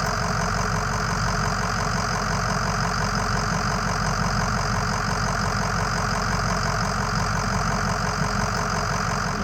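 Ford F-250 pickup's engine idling steadily at operating temperature, with a fast, even beat to its sound.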